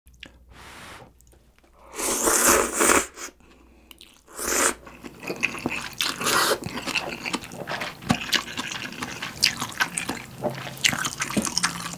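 A person slurping instant ramen noodles from broth, with two loud slurps about two seconds in and again near the five-second mark. Then close, wet chewing with many small smacking clicks.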